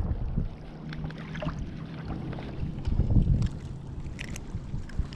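Wind buffeting the microphone in uneven gusts, with a few light clicks and taps near the end.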